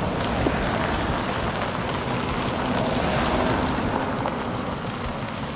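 Convoy of Jeeps driving past on a gravel road: tyre noise on the gravel and engines running, easing off near the end as the last one pulls away.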